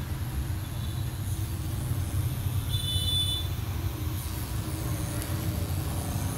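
Rotary pen tattoo machine running with a steady low hum as its cartridge needle works into the skin.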